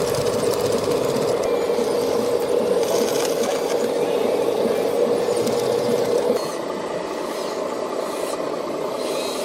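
Small electric motors of radio-controlled construction models running with a steady whine; the main whine stops about six seconds in, leaving a quieter motor and gear whir.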